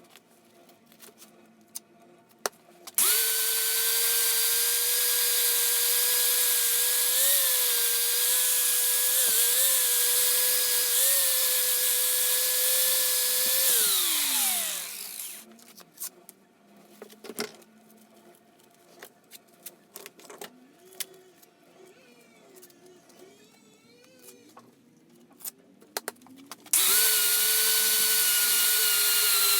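Electric power tool running at a steady, fairly high pitch for about eleven seconds, then winding down as it is switched off. Light clicks and handling knocks follow, and the tool starts up again near the end.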